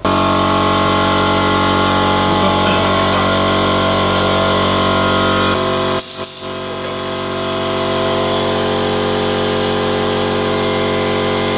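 Small electric air compressor running with a steady hum, feeding a tyre inflator. About six seconds in a short hiss of air comes from the chuck at the tyre valve.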